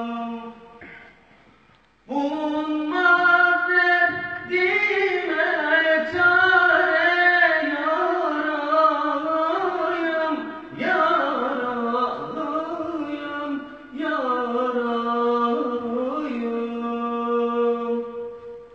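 A man singing an ilahi, a Turkish Islamic hymn, solo and without instruments, in long held notes with wavering, ornamented runs. A held note ends about a second in, and after a short pause he sings three more phrases, the last closing on a long held note that fades out near the end.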